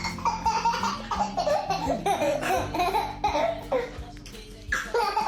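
A small child laughing in repeated bursts, pausing briefly near the end before laughing again, over background music.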